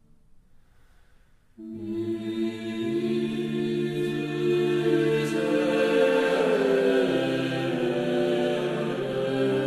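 Slow choral-style background music of long held chords that change every few seconds, coming in suddenly about one and a half seconds in after a brief near-silent gap.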